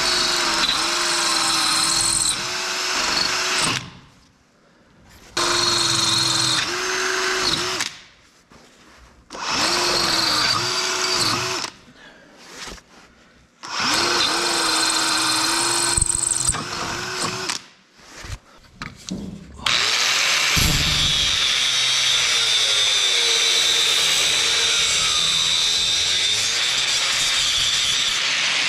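Cordless drill with a twist bit drilling down through a bench vise's mounting hole, run in four bursts of a few seconds with short pauses, its motor whine sagging under load. Near the end an angle grinder starts and runs steadily, grinding the steel bench top.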